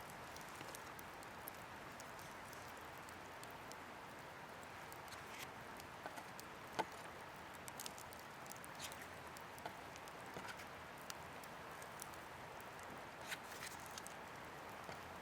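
Steady, quiet rushing background with scattered small clicks and crackles, and one sharper snap about seven seconds in.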